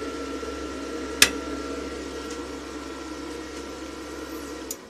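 Dnipro-M SAB 258D inverter welder running with no load: a steady hum from its cooling fan and electronics with a thin high whine, and one sharp click about a second in. Near the end the hum cuts off suddenly as the welder is switched off.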